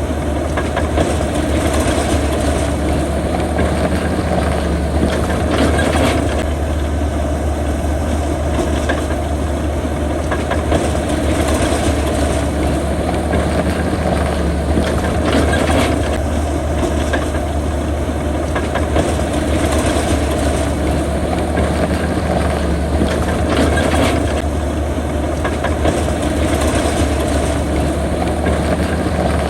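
Heavy earthmoving machinery's diesel engine running steadily under load, with a deep continuous hum that swells slightly every few seconds.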